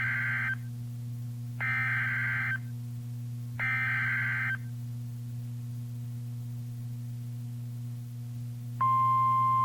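Emergency Alert System SAME header on NOAA Weather Radio: three warbling digital data bursts about a second long, two seconds apart, over a steady low hum. Near the end the steady 1050 Hz weather radio warning alarm tone starts, signalling a Flash Flood Warning.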